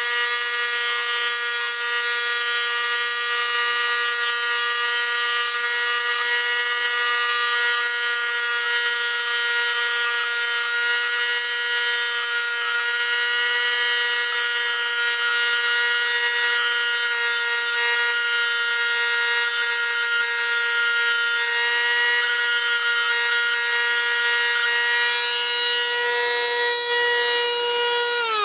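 High-speed rotary tool with a sanding drum grinding the end of a thin steel reed valve to length: a steady high whine with a grinding hiss, speed unchanged. It is the stage of shaping a homemade replacement reed valve for an air compressor.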